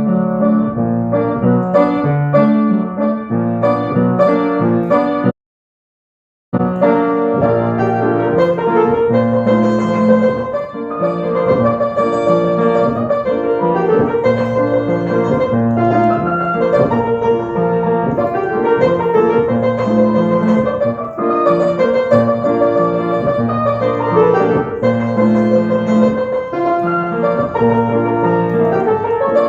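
Electronic keyboard music with a piano sound, notes and chords played continuously. It cuts to dead silence for about a second a little over five seconds in, then the music starts again.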